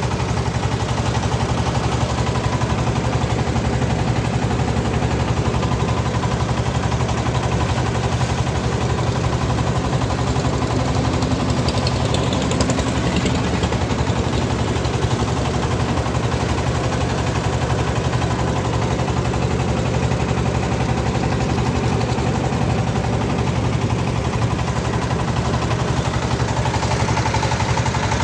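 Inboard engine of a small motorized river boat running steadily under way, with a fast, even chugging beat.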